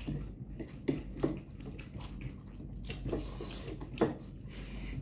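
Wet eating sounds of spicy noodles being slurped and chewed, with a few short, sharp smacks.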